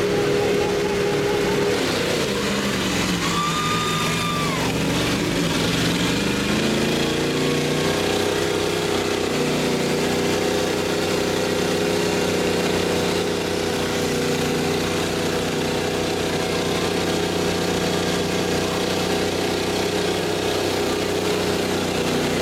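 Pickup truck engines running hard under load in a truck tug of war. The engine note dips a couple of seconds in, climbs back by about eight seconds, and then holds steady and high as the trucks strain against each other with their tyres spinning in the dirt.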